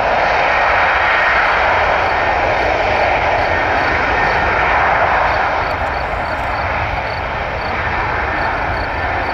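Airbus A330's twin jet engines at takeoff power during the takeoff roll, a loud steady rushing jet noise that eases slightly about halfway through.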